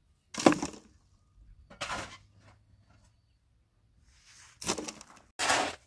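Four short scraping noises a second or more apart, the first about half a second in and the loudest.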